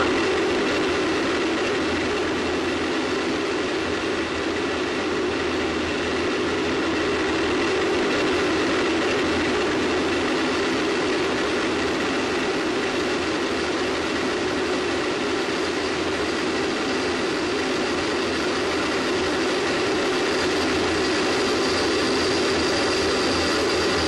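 Space Shuttle solid rocket booster firing during ascent, picked up by a microphone on the booster itself: a loud, unbroken rumble with a few thin steady tones above it. A faint high tone comes in during the last few seconds.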